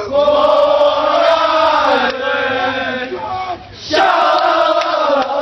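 A crowd of fans chanting in unison, loud and close. The chant drops away briefly about three and a half seconds in, then picks up again.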